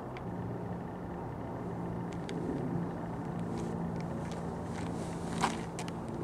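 Steady low hum of a motor vehicle's engine running, with scattered light clicks and rustles, and one sharp snap about five and a half seconds in as a disc golf drive is thrown.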